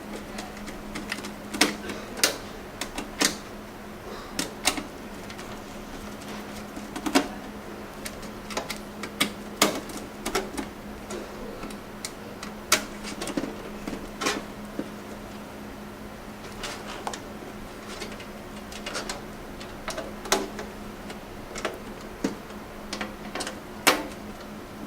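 Screwdriver tightening the mounting screws of a DVD drive in a metal PC case: irregular sharp clicks and metallic ticks, over a steady low hum.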